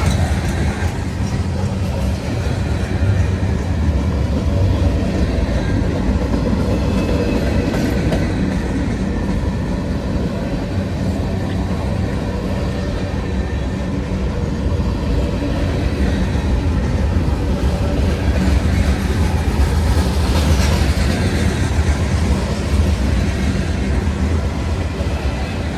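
Freight train cars rolling past at speed: a steady rumble of steel wheels on the rails.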